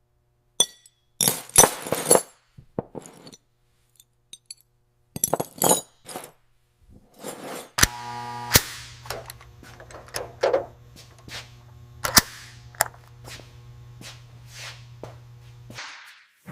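Workshop metalwork: irregular sharp knocks and clinks of tools on metal parts, the loudest about a second and a half in, near eight seconds and near twelve seconds. A steady low machine hum joins about eight seconds in and stops shortly before the end.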